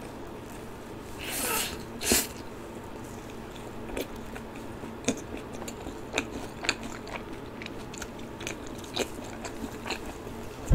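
Eating sounds from cheese-powdered fried chicken and a cheese ball: one loud crunchy bite about two seconds in, then irregular sharp crunching clicks as the food is chewed.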